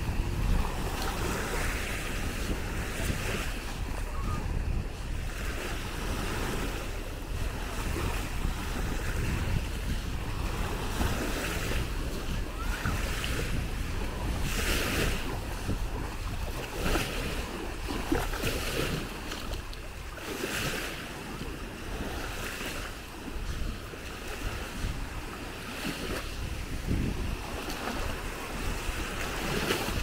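Small Baltic Sea waves lapping and washing up on a sandy shore in irregular surges, with wind rumbling on the microphone.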